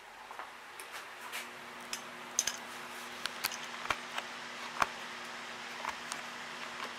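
A steady low hum and hiss, rising a little over the first couple of seconds, with scattered sharp ticks and clicks at irregular times; the loudest come about two and a half and five seconds in.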